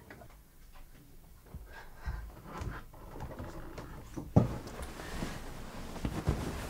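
Soft rustles and knocks of a person moving about in a small room, with one sharp thump about four and a half seconds in.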